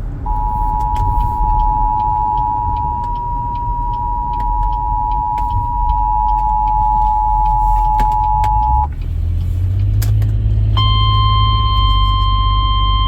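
Emergency Alert System attention signal on FM radio: the steady two-tone alert, about 853 and 960 Hz sounded together, held for about eight and a half seconds and announcing a severe thunderstorm warning. After a short gap and a click, a single steady 1050 Hz weather-radio warning tone begins. A low car engine and road rumble sits underneath.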